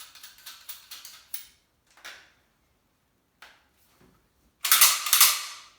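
Metal parts of a tube-fed semi-automatic shotgun being handled during reassembly: quick small clicks as the barrel nut is screwed on, a couple of single clicks, then a louder scraping rattle near the end, the loudest sound.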